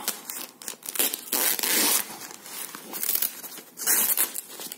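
Yellow packing tape being ripped off the foam wrapping of a parcel, in bursts of loud ripping; the longest lasts about a second, starting a second in, and another comes near the end.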